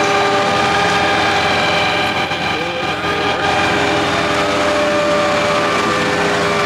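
A vehicle engine running steadily, with a constant whine of several high held tones over it.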